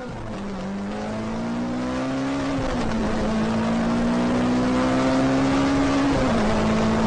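Car engine accelerating through the gears: its pitch climbs steadily, drops at an upshift about three seconds in and again about six seconds in, then climbs again, getting louder over the first few seconds.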